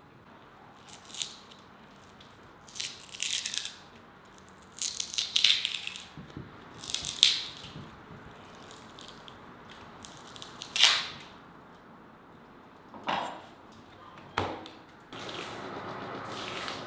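Membrane being peeled and torn by hand off raw veal ribs on a wooden board: a series of short tearing sounds, one every second or two. About fifteen seconds in, a steadier background noise starts.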